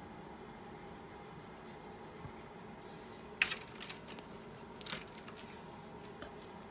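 A few sharp clicks and rustles about halfway through, as a dog moves its head and its metal chain lead clinks, over a steady faint hum.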